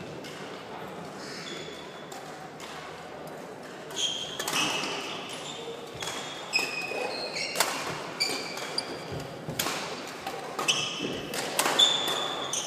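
Badminton rally starting about four seconds in: sharp cracks of rackets striking the shuttlecock about once a second, mixed with short squeaks of players' shoes on the wooden court floor.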